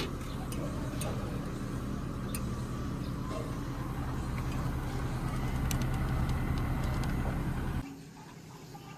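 Air-conditioner outdoor unit running with a steady low hum and a few light ticks, cutting off abruptly near the end.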